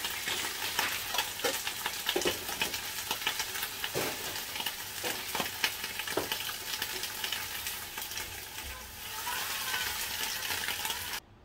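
Leafy greens sizzling in hot oil in a wok while a spatula stirs them, with frequent short clicks and scrapes of the spatula against the pan. The sizzle cuts off suddenly near the end.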